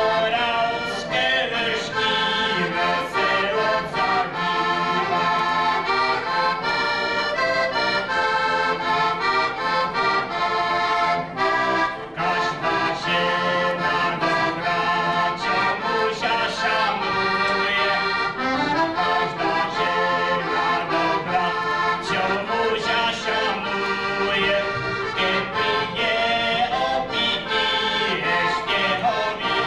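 Heligónka, a Slovak diatonic button accordion, playing a folk tune: a moving melody of changing notes over a steady bass.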